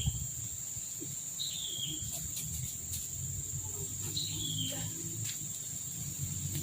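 Steady high-pitched insect drone with a bird's short falling whistled call twice, over a low rumble.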